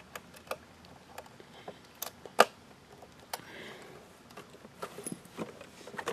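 Scattered small clicks and taps of hands handling the white plastic case of a Synology DS215j NAS, with one sharper knock about two and a half seconds in.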